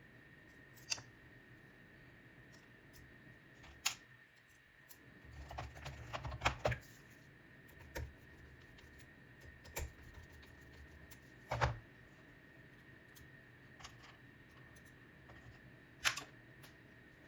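Sparse, separate clicks and light metallic taps from small tools and screws being handled while a scope rail's mounting screws are driven in, with a short cluster of knocks and handling about a third of the way in.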